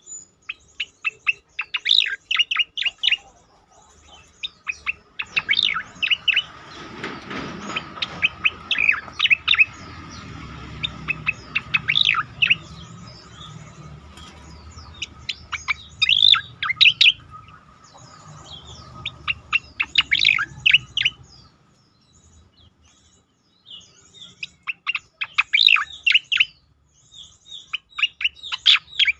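Striated grassbird (cica koreng) singing in bouts of rapid, sharp chirping notes, each burst a second or two long, repeated every few seconds.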